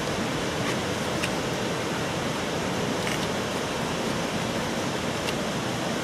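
Large waterfall's steady rushing roar, an even wash of water noise without a break, with a few faint ticks.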